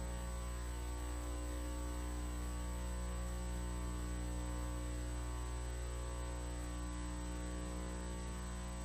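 Steady electrical mains hum in the audio line, a low buzz with a stack of even overtones that holds unchanged throughout.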